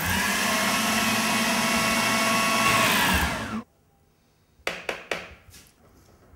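Electric food processor running steadily as it blends chickpeas and tahini into hummus, then winding down and stopping about three and a half seconds in. A few short clicks follow about a second later.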